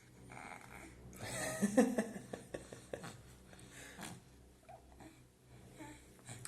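A baby vocalizing briefly about a second in, a short babbling or grunting sound, followed by a run of small clicks and knocks of handling.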